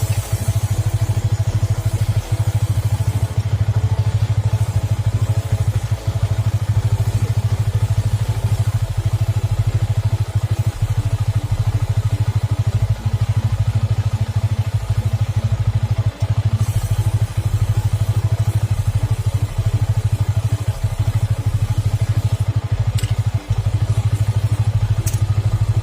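Yamaha R15 V3's single-cylinder motorcycle engine running steadily at idle, a low, even, fast-pulsing hum with a few brief dips.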